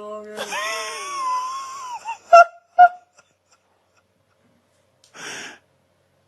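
An animal's wheezy, wavering high-pitched squeal lasting about a second and a half, followed by two short, sharp yelps. A breathy puff comes about five seconds in.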